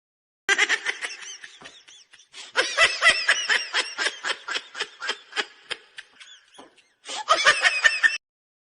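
Laughter sound effect: a person laughing in quick rapid bursts, with a short break near the end before one last burst, then cutting off suddenly.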